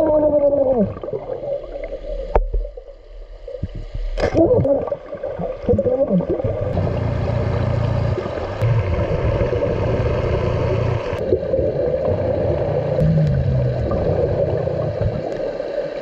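Underwater sound of a scuba dive: a steady droning hum with the low rumble and gurgle of a diver's exhaled bubbles through the middle, and a couple of sharp knocks in the first few seconds.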